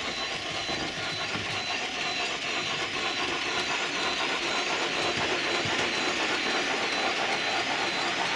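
OO-gauge model trains running on a layout. There is a steady whirr of motors and wheels on the track, mixed with engine sounds from the locomotives' DCC sound decoders.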